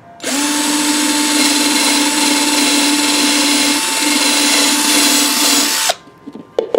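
Electric drill boring drainage holes through the bottom of a thin plastic flower pot. It runs steadily for about six seconds, then stops abruptly, followed by a few light knocks.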